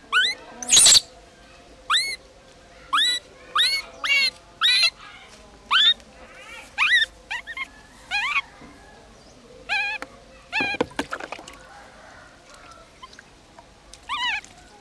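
Baby macaque crying: a dozen or so short, high, whistle-like distress calls that each rise and fall, about one a second, with a pause of a few seconds before the last two. Two brief bursts of noise cut in, one just under a second in and one about ten and a half seconds in.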